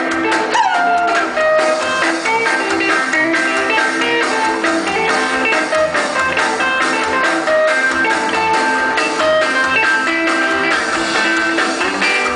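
Live rock and roll band playing an instrumental passage: an electric guitar plays a lead line over drum kit and bass, opening with a falling slide about half a second in.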